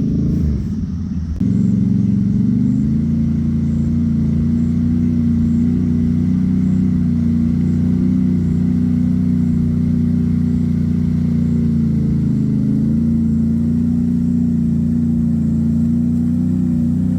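ATV engine running under way. It dips briefly, then picks up speed about a second and a half in and holds a steady pitch, easing slightly near twelve seconds.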